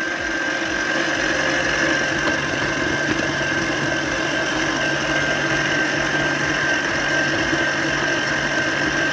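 Electric stand mixer running at a steady speed with an even high whine over a low motor hum, its beater churning butter, powdered sugar and egg white in a steel bowl. The egg white has made the mixture look separated, which is expected before the flour goes in.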